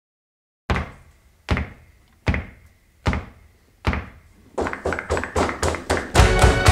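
Opening of the music soundtrack: after a short silence, five single heavy thuds about a second apart, each ringing away, then quicker hits that speed up until the full music comes in near the end.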